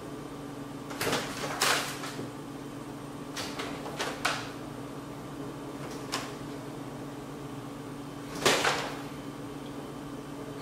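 A handful of short rustles and knocks as a person shifts and leans back on a couch, over a steady low room hum.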